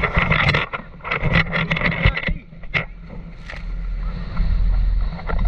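A jet ski running across choppy lake water: the hull slaps and water splashes in a quick run of strikes over a low engine drone. After a short lull about two and a half seconds in, a steady low rumble builds and holds.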